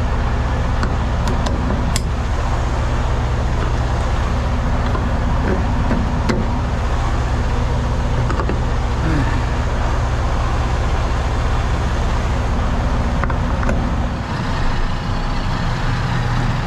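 Semi-truck diesel engine running steadily, with a few sharp clicks; the low engine note changes about fourteen seconds in.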